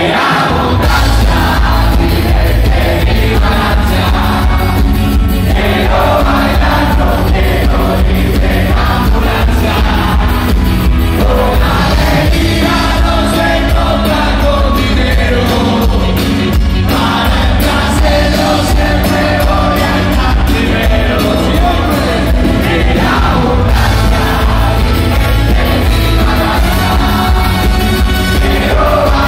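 Loud live band music with a man singing into a microphone over heavy bass and drums, played through a concert PA.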